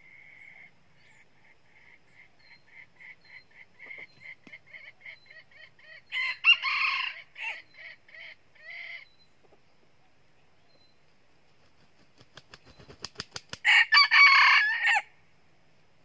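Red junglefowl rooster clucking in a quickening series of about four clucks a second, breaking into a crow about six seconds in. Near the end a quickening run of wingbeats leads into a second, louder crow.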